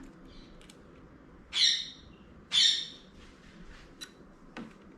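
A bird calling twice, about a second apart, each a short harsh high call.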